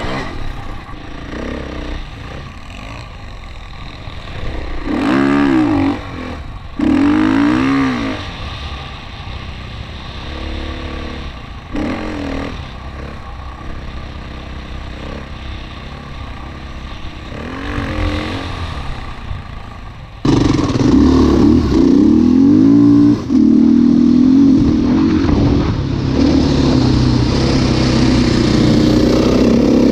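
KTM dirt bike engine revving in bursts as the bike rides over sand dunes, the pitch climbing and dropping with the throttle. About two-thirds of the way through it suddenly becomes louder and runs more steadily, still rising and falling in pitch.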